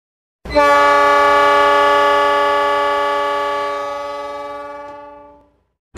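A single long sustained tone, as for an intro logo, starting abruptly and fading away over about five seconds. It is rich and ringing, with a steady pitch.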